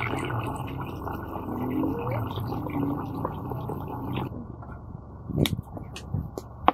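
Water sloshing and swirling as rice is rinsed by hand in a steel basin and the water is tipped off. About four seconds in it stops abruptly and a few sharp knocks of a knife chopping tomatoes on a wooden cutting board follow.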